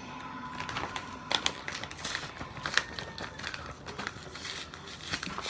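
Packaging of mini donuts being crinkled, pulled and picked at by hand while someone struggles to open it: irregular crackles and sharp clicks.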